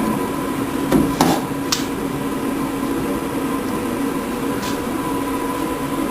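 A few sharp clicks and knocks, as of metal parts being handled, over a steady machine hum: a cluster about a second in and a fainter one past the middle.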